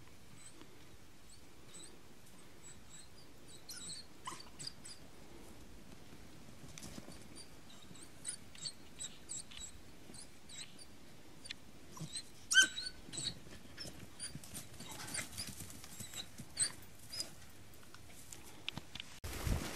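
Lurcher giving short, high yaps and yelps at irregular intervals while chasing a rabbit, the loudest about twelve and a half seconds in. Just before the end a louder rustling, trampling sound cuts in.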